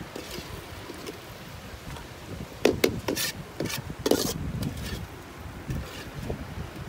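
Handling noise: a few short scrapes and rubs bunched together in the middle, from the wok spatula and the foam tray of cooked crab being handled.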